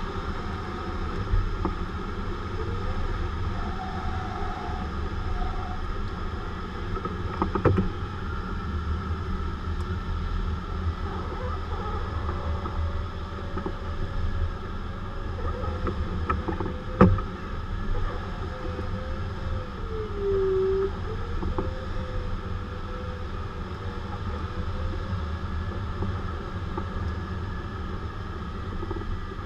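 Steady rush of air over a glider's canopy, heard inside the cockpit. A faint tone wanders slowly in pitch and dips about two-thirds of the way through. Two sharp knocks come about a quarter and just over halfway in.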